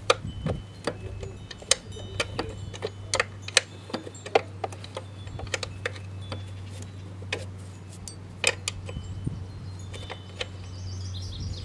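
Hand wrench clicking and ticking against metal as it works a bolt loose on a lawn mower engine. The clicks come in irregular runs over a steady low hum.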